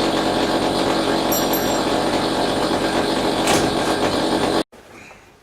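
A power tool running steadily and loudly, stopping abruptly about four and a half seconds in.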